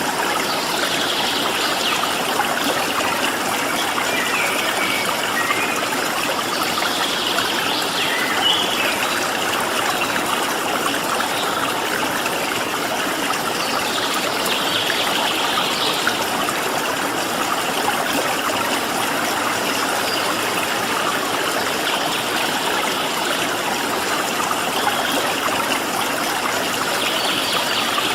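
Stream of water flowing steadily, a constant rushing and trickling. Faint bird calls come through it every few seconds.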